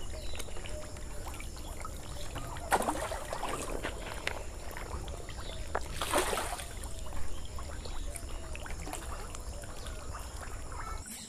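Pangasius catfish splashing at the water surface of a tank as they feed on floating pellets, with louder splashes about three seconds in and again about six seconds in, over a steady low rumble.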